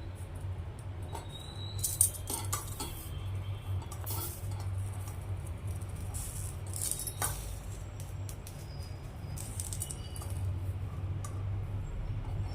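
A karpooravalli leaf being roasted on a stove: a handful of light clicks, clinks and crackles scattered over a steady low hum.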